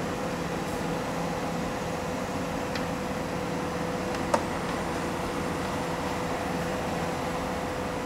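Heavy diesel machinery of an asphalt paving job running steadily with a constant hum. A single sharp metallic click stands out about four seconds in.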